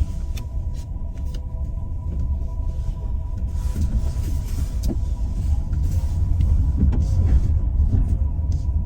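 Car heard from inside the cabin, its engine and the road giving a steady low rumble as it drives slowly out of a parking garage.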